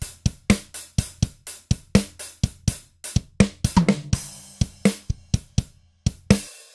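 Multitracked acoustic drum kit playing back: a busy pattern of sharp hits, about four or five a second, with low-pitched toms ringing under hi-hat and cymbals. The toms are shaped with a transient designer for more attack and a punchy smack. The pattern ends on a last hit shortly before the end.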